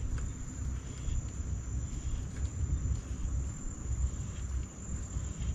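Steady high-pitched insect chirring, typical of crickets, held without a break over a low, uneven rumble.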